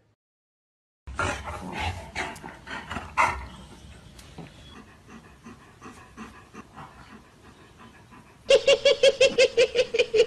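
A golden retriever panting softly and steadily. Near the end comes a quick, loud run of high, evenly pitched pulses, several a second.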